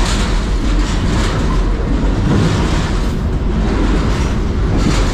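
Freight train rolling along, a steady rumble and rattle of the cars.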